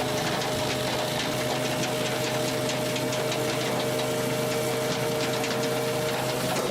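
A firewood processor running: a steady engine drone with a constant high whine over it and a quick, fine clatter. The sound changes abruptly at the very end.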